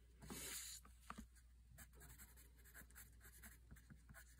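Watercolour pencil scratching faintly on Bristol paper in quick, short strokes, sketching grass, with a longer, louder scrub about half a second in.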